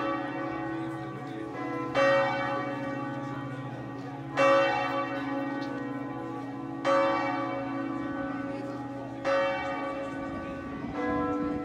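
Swinging church tower bells ringing out at the end of a service. One bell strikes about every two and a half seconds over the steady hum of deeper bells, and the deepest hum dies away near the end.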